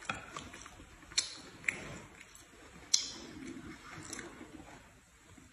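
Quiet eating at a table: faint chewing, with a few sharp clicks of chopsticks against plates, the loudest about three seconds in.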